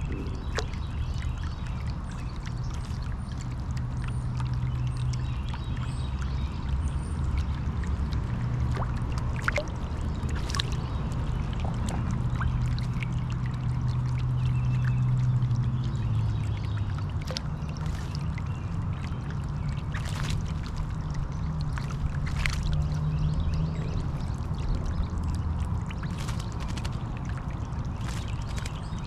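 Solar bird-bath fountain pump spraying water that falls back into the basin: a steady splashing trickle with scattered sharper drips, over a low steady hum.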